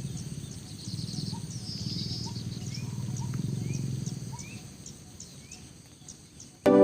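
Spotted dove calling in a low, rough, pulsing coo, in a few phrases that fade out after about four seconds, with faint chirping birds and insects behind. Loud music cuts in at the very end.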